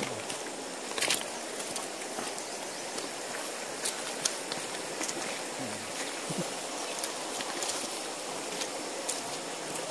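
Shallow stream running over rocks in a steady rush, with scattered sharp clacks of footsteps on the wet river stones.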